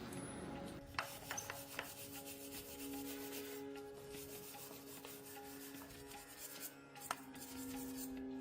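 Rapid, even abrasive rubbing strokes on a workpiece, like hand sanding, starting about a second in, with a few light knocks at the start and one near the end. Soft background music plays underneath.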